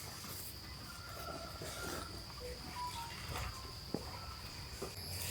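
Insects droning in a steady high-pitched continuous tone, with a few short faint whistles and a single sharp click about four seconds in.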